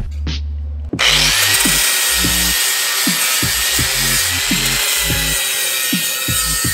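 Angle grinder with a flap disc starting about a second in and grinding a cut steel edge smooth: a steady high whine over a loud hiss. Background music with a bass beat plays underneath.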